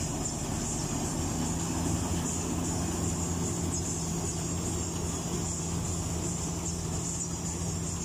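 Combine harvester running steadily as it cuts and threshes a standing rice crop: an even engine hum under a constant high hiss.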